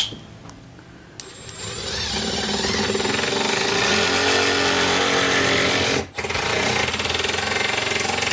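A cordless power driver runs a screw into the PVC cabinet, a steady rapid mechanical whir that starts about a second in, stops briefly about six seconds in, then runs again.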